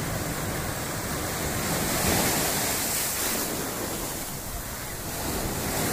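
Sea surf breaking and washing over rocks and pebbles on a rocky shore: a steady rush of water that swells louder about two seconds in.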